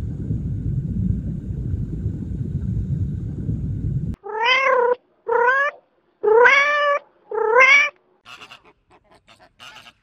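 A low, steady rumble of aquarium water for about four seconds. Then a domestic cat meows four times, each meow rising and falling in pitch.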